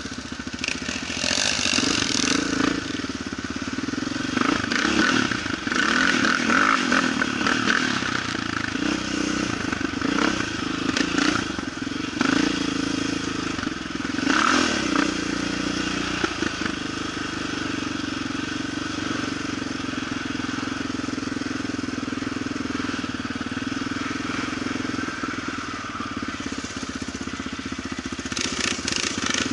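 Quad (ATV) engine running under way, a steady engine note with scattered clatter and knocks through roughly the first half, then running more evenly.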